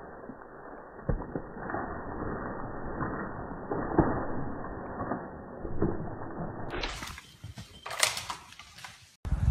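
Rustling and twig snaps of movement through forest undergrowth, sounding dull and muffled. About seven seconds in, the sound turns clearer, with a few sharp snaps.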